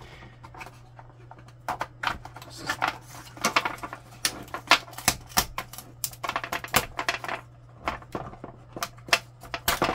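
Irregular plastic clicks, taps and knocks from hands handling a printer scanner's contact image sensor carriage and its flat ribbon cable, beginning about two seconds in.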